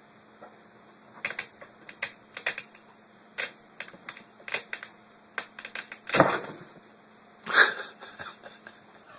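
Quick, irregular taps and clicks, with two louder knocks in the second half.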